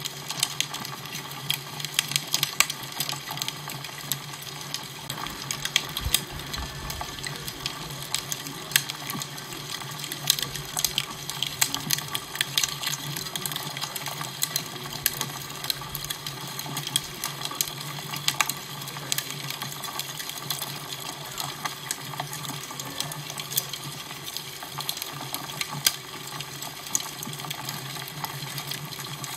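Fire crackling: a dense, irregular run of sharp pops and snaps over a steady hiss and a low hum.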